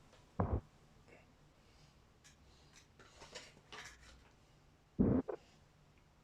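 Two dull thumps, one about half a second in and a double one about five seconds in, with faint clicks and rustling in between: objects being handled and set down.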